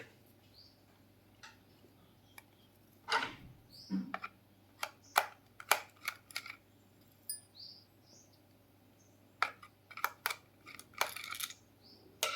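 Scattered small clicks, taps and light metallic clinks, with a few short squeaks, from hands working on a small plastic Bluetooth speaker whose casing screws have just been removed, along with its tiny screws and tools.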